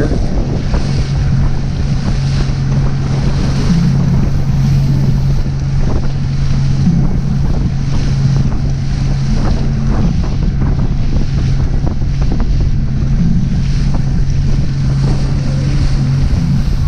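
Motorboat engine running steadily at cruising speed, a constant low hum, with wind buffeting the microphone and water rushing past the hull.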